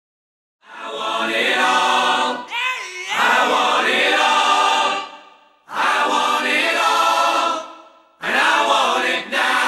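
Choral music sting: sustained choir-like chords in four swells, each fading into a brief gap, with a short sliding pitch glide between the first and second swells.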